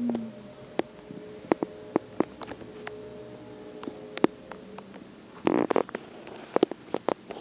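A 12-week-old bulldog/pit bull puppy asleep and dreaming, chewing in its sleep: scattered small clicks and smacks of its jaws and baby teeth, a brief low grunt at the start and a short huff of breath about five and a half seconds in.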